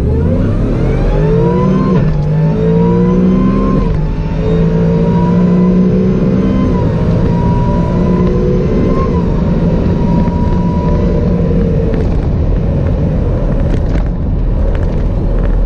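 Supercharged Coyote 5.0 V8 of a 2019 Ford F-150 at full throttle on a drag-strip launch: the revs climb and drop back at gear changes about two, four and seven seconds in. The engine holds high revs, then lets off about twelve seconds in and the revs fall as the truck coasts.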